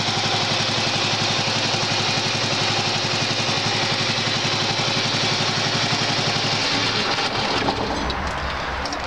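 A Honda 2213 lawn tractor's 13-horsepower vertical-shaft Honda engine running steadily, just started on the first crank after winter storage on old fuel. About seven seconds in, as a dashboard lever is moved, the running note changes and drops.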